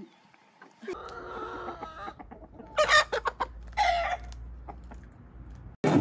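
Chickens calling: one drawn-out call about a second in, then two short, sharp calls around three and four seconds in.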